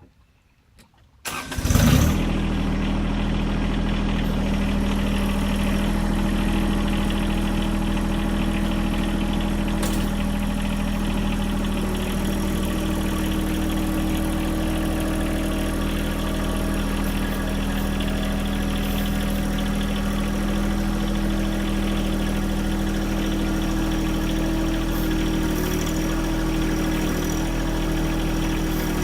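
John Deere 1023e tractor's three-cylinder diesel engine starting about a second and a half in, then running steadily at an even pitch.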